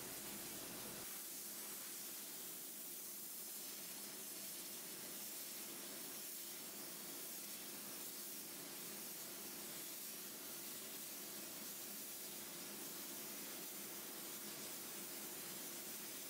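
Small soda blasting unit spraying baking soda with compressed air against a wooden nightstand: a faint, steady hiss.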